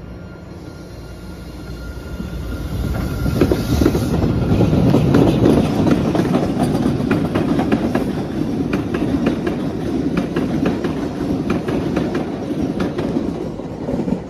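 An MBTA Blue Line electric subway train passing close by on surface track. Its running noise swells about three seconds in, with wheels clicking over the rail joints in a quick repeating clatter.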